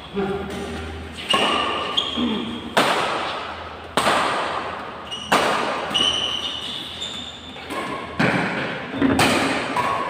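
Badminton rackets striking the shuttlecock in a doubles rally, a sharp crack about every second or so, each ringing on in the large hall.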